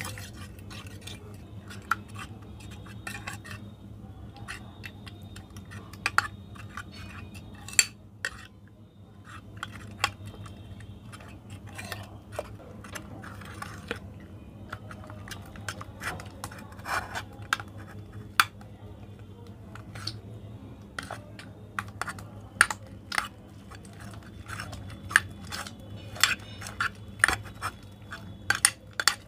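Metal fork stirring runny slime mixture in a glass baking dish, clinking and scraping against the glass in irregular sharp ticks, with wet stirring sounds, as the mixture thickens into slime. A low steady hum runs underneath.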